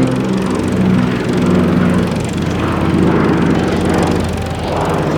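A Consolidated PBY Catalina's twin Pratt & Whitney R-1830 Twin Wasp radial engines droning loudly and steadily as the flying boat flies past, the pitch of the drone shifting slightly.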